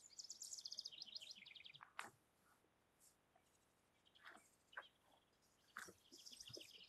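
A songbird singing a fast trill of repeated high notes that steps down in pitch, lasting about two seconds, then starting again near the end. A few faint scuffs are heard in between.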